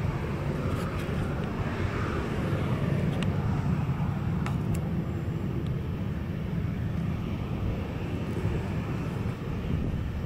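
Boeing 737-800 airliner's CFM56-7B turbofan engines running at low thrust as it taxis past: a steady low rumble.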